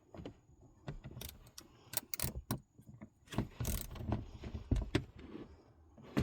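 Irregular metallic clicks, clinks and knocks of hand tools working the small 8 mm bolts on a G56 manual transmission's shifter cover.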